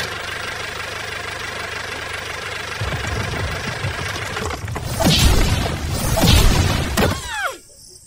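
An engine sound runs steadily, then a low rumble with loud crashing swells about five and six seconds in, like dirt and rocks tumbling, followed by a quick falling whistle; the sound drops away just before the end.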